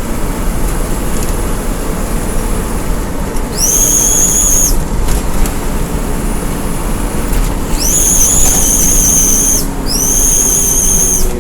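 Steady engine and road rumble from a moving bus, with a high-pitched whistle-like tone sounding three times, the last two longer. Each tone rises briefly at its start, then holds steady for one to two seconds.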